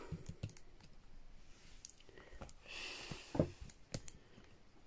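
Quiet handling noise from a folder being picked up and moved: scattered light clicks and taps, a brief rustle about three seconds in, then a soft knock.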